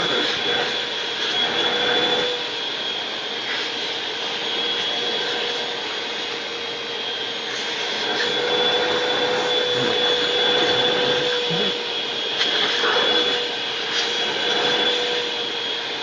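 Vacuum cleaner running steadily with a whine over a hiss, its hose wand being bitten and mouthed by a pug at the nozzle.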